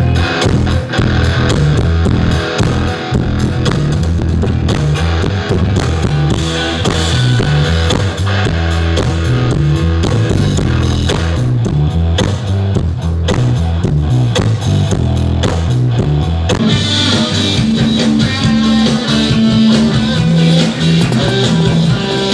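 A live rock band playing loud electric guitars, bass and drum kit. The drumming thins out about two-thirds of the way through, leaving mostly the guitars.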